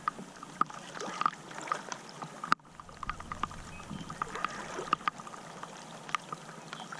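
A caught bass held in the water: light splashing and trickling with scattered small taps and clicks, and no steady tone.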